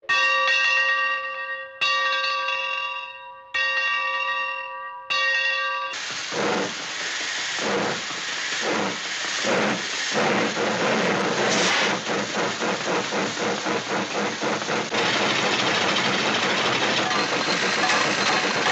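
A bell struck four times, about a second and a half apart, each stroke ringing with several steady tones and cut off by the next. Then a loud, noisy rushing sound with uneven clattering at first, settling into a steady rush.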